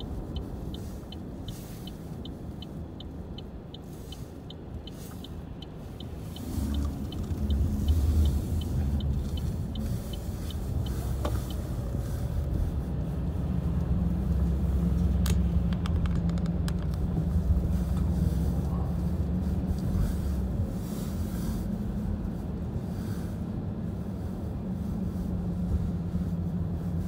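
Car engine and tyre rumble heard from inside the cabin while driving on cleared winter roads. For the first ten seconds or so the turn-signal indicator ticks about three times a second. The rumble grows louder from about six seconds in as the car picks up speed, then holds steady.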